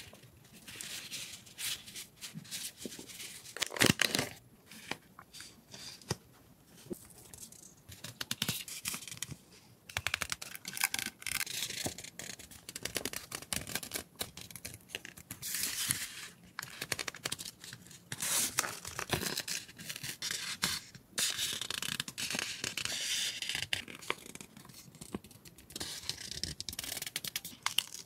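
Close-up handling of stationery: round paper stickers are shuffled and tapped, with one sharp knock about four seconds in, then strips of PET decorative tape are unrolled and handled, the plastic film crinkling and rustling with scattered small clicks.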